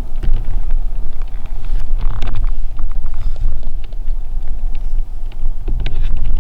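Loud low rumble on the microphone with scattered light clicks and rustling.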